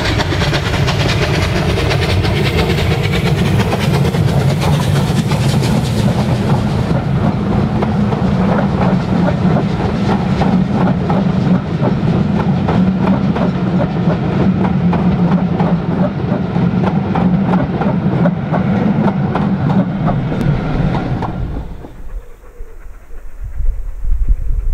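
Unrebuilt Bulleid West Country class steam locomotive working past close by, followed by its train of coaches rolling past with wheels clicking steadily over the rail joints. The sound cuts off abruptly near the end, leaving a low rumble.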